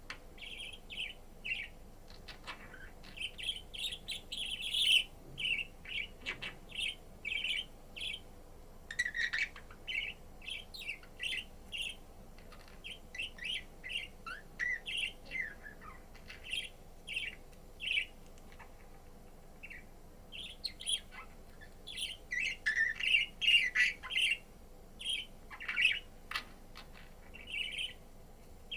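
A pet budgerigar chirping: a steady run of short, high chirps, some gliding in pitch, with a denser, louder burst of calls about three-quarters of the way through.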